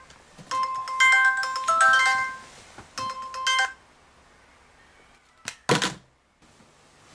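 Mobile phone playing an electronic ringtone melody of short beeping notes, which stops about three and a half seconds in as the phone is picked up. Near the end a click and then a short knock as the phone is set down on the bedside table.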